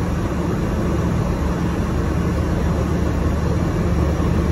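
Steady low hum of an MRT feeder bus standing at its stop with the engine running, heard from inside the passenger cabin.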